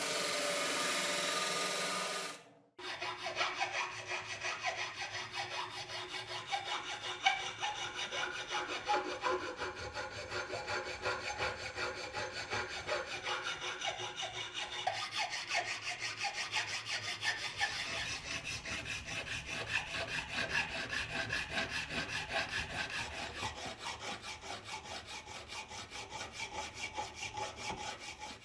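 A motor-driven tool runs steadily and stops about two seconds in. Then a hand saw works back and forth in steady strokes, about two a second.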